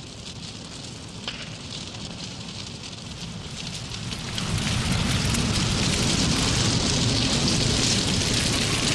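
A timber fire crackling and hissing at the base of an undercut brick mill chimney: the props that hold it up are burning away before it falls. The fire grows louder about four seconds in.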